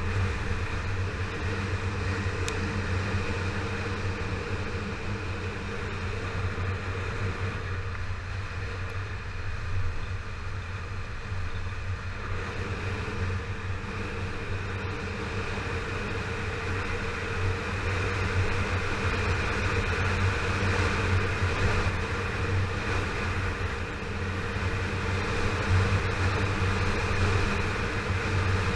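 Yamaha FZ6R's 600 cc inline-four engine running steadily while the motorcycle cruises, mixed with wind and road noise.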